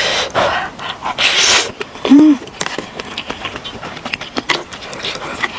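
Ramen noodles slurped up in two hissy pulls, then a short 'mm' hum from the eater, followed by chewing with many small wet clicks.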